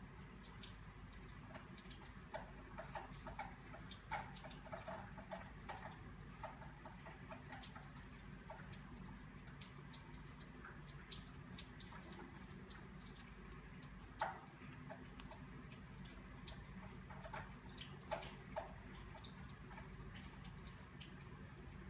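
Faint, irregular small clicks and rustles of a crochet hook working yarn stitch by stitch, over a steady low hum.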